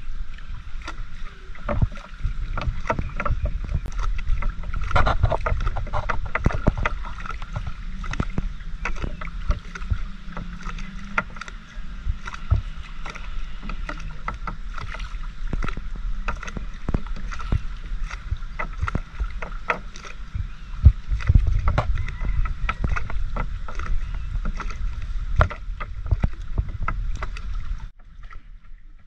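Fishing net being paid out by hand over the bow of a small wooden outrigger boat: a dense run of small knocks and rubbing as the net slides over the hull into the water, over a low rumble. It quietens suddenly near the end.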